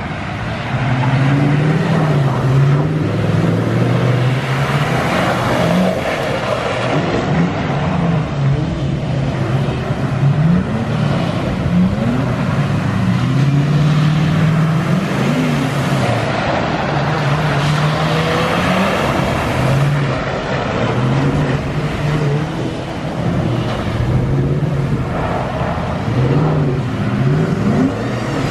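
Truck engine revving up and down over and over, pitch climbing and falling every second or two, over a steady rushing hiss.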